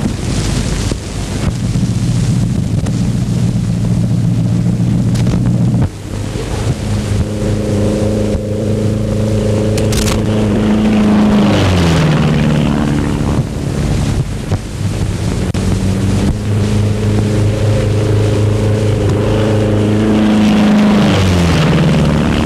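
Propeller aircraft engine droning as it passes, its pitch holding steady and then sliding down as it goes by, twice, under the hiss of an old optical film soundtrack.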